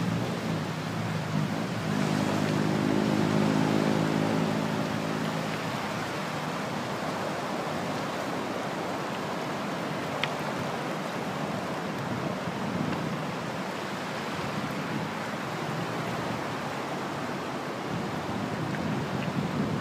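Steady wash of surf on a pebble beach. For a few seconds near the start a low engine hum passes, and about halfway through there is a single sharp click.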